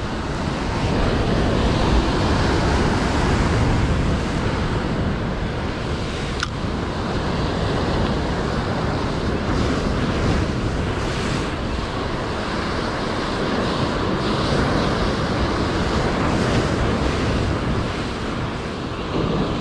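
Steady rush of surf and wind, with wind buffeting the microphone, in rough weather.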